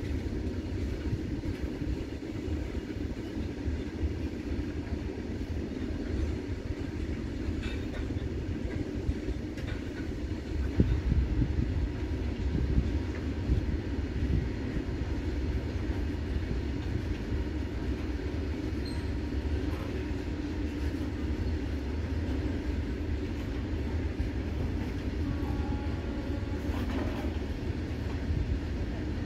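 Loaded open coal wagons of a freight train rolling past: a continuous rumble of steel wheels on the rails, with occasional knocks from the wheels and couplings.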